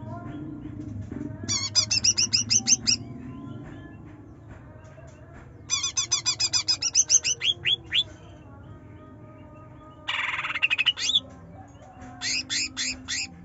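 Greater green leafbird (cucak ijo) singing in loud bouts of rapid, repeated sweeping chirps, four times, with a harsh rasping burst in the third bout.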